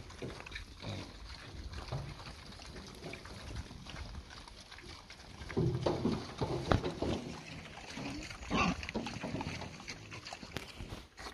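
A herd of wild boar feeding at close range, with bursts of low grunts about halfway through and again a few seconds later.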